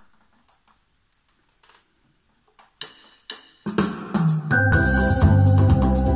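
Digital arranger keyboard starting a song: faint taps at first, two sharp hits about three seconds in, then just before four seconds a full accompaniment with a repeating bass line and chords comes in, with a held melody note over it.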